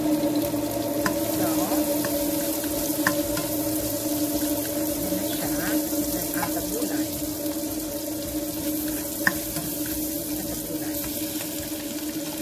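Sliced onions and garlic frying in oil in a nonstick wok, a steady sizzle, with a few sharp taps of a spoon against the pan, the loudest about nine seconds in. A steady hum runs underneath.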